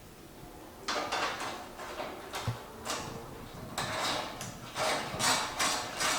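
Handling and fitting of Jeep fender parts: repeated scraping and rattling of plastic and metal pieces being moved against each other, starting about a second in and getting busier toward the end.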